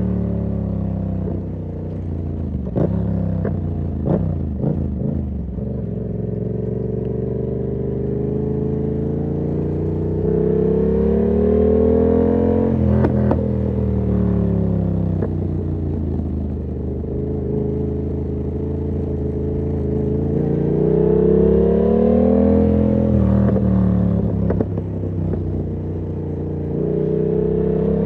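Yamaha MT-07's parallel-twin engine through an SC-Project aftermarket exhaust, under way. The engine note climbs slowly under throttle and then drops abruptly, repeating several times, with a few sharp clicks near the start.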